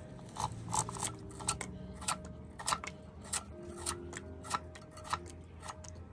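Watermelon rind being sliced on a curved iron blade fixed to a wooden board: short crisp cutting clicks, about two a second at an uneven pace.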